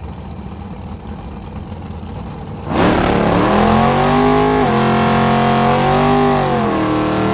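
Car engine idling with a low rumble, then revving up about three seconds in and held at high revs, dipping once and rising again near the end.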